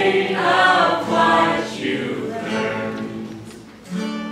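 Mixed-voice a cappella group singing in close harmony, with no instruments. The phrases grow quieter, and a new held chord comes in near the end.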